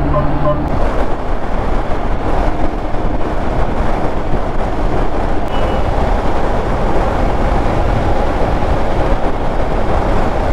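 Hero Xpulse 200 4V motorcycle riding at highway speed: a loud, steady rush of wind and road noise over the engine. In the first half-second a vehicle horn sounds in quick repeated toots.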